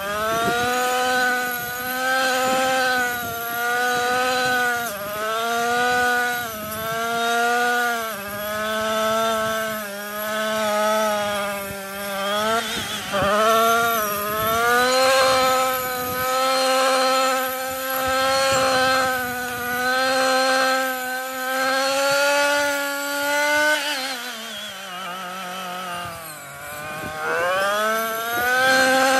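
Husqvarna 128R brushcutter's small two-stroke engine running at high revs, its pitch dipping briefly every second or two as the cutting head takes load in thick growth. Near the end the engine drops toward idle for a few seconds, then revs back up.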